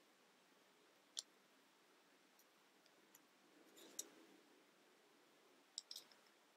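Faint clicks of plastic Mega Bloks building bricks being handled and pressed together. There is one sharp click about a second in, another around four seconds in with a little rustling, and two quick clicks near the end, over near silence.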